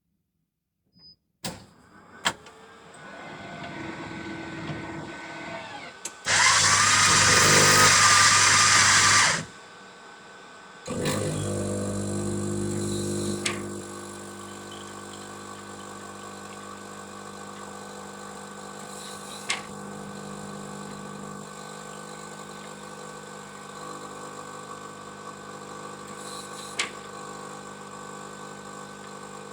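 Electric coffee machine working through its cycle. It gives a few clicks, then a motor hum builds. A loud, harsh whirring lasts about three seconds and stops, and after a short pause a pump hum sets in. The machine then runs on steadily, with two sharp clicks.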